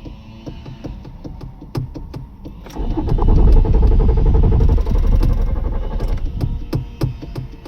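Small old car's engine being cranked by the starter in a failed start attempt, loudest from about three to six seconds in, with quieter cranking before and after.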